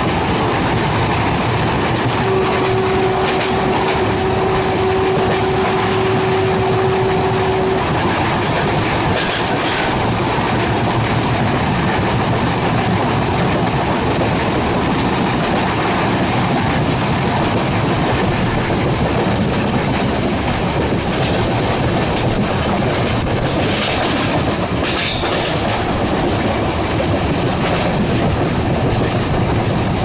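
Passenger train running at speed, heard from inside one of its coaches: a steady rumble of wheels on rail with clickety-clack. A couple of seconds in comes one long single-pitch horn blast of about five and a half seconds from its WDP3A diesel locomotive.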